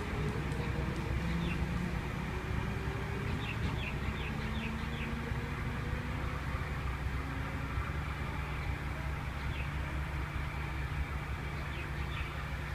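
V-set intercity electric train pulling away from the platform: a steady low rumble and hum, with faint slowly rising tones in the first few seconds. A few short high chirps come through a few seconds in.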